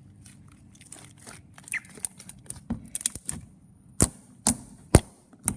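Thick, glossy fluffy slime being squeezed and pressed by hand, giving off sharp clicks and pops: scattered soft ones at first, then four loud pops about half a second apart in the second half.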